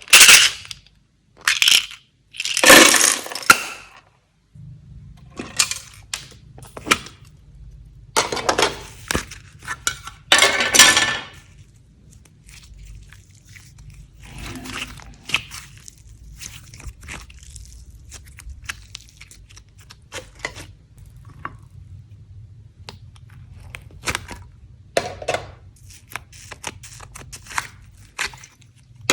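Slime being mixed and squished by hand, giving irregular sticky squelches, crackles and crunches. There are louder bursts during roughly the first ten seconds, then quieter, finer crackling.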